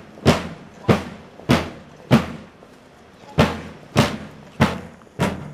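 Rope-tensioned wooden bass drum struck with a beater in a steady marching beat, about one stroke every 0.6 seconds, with one beat left out near the middle.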